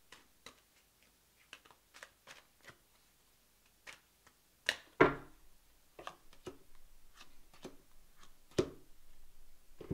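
Tarot cards being handled and drawn on a table: scattered light clicks and taps, two sharper knocks about five seconds in and another near nine seconds, with soft continuous rustling in the second half.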